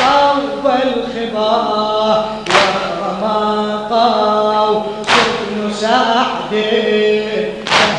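Men chanting an Arabic Shia mourning elegy (latmiya) for Imam Husayn, a lead reciter with more voices joining, with a sharp loud accent about every two and a half seconds.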